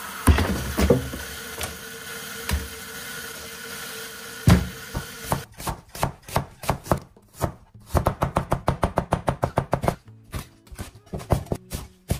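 Tap water running into a plastic colander in a steel sink for about five seconds, with a few knocks. Then a kitchen knife chops on a cutting board, slicing onion in quick runs of sharp chops.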